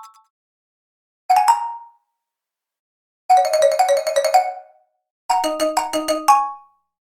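Short pitched percussion sound effects played one after another with silence between, bright and bell-like. A brief double strike comes about a second in, a flurry of quick notes about three seconds in, and a rhythmic run of strikes about five seconds in, each ringing out briefly.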